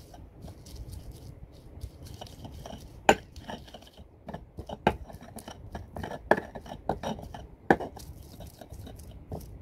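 A stone pestle pounding and grinding shallots and herbs in a stone mortar: sharp knocks of stone on stone, a few much louder than the rest, with softer crunching and scraping between.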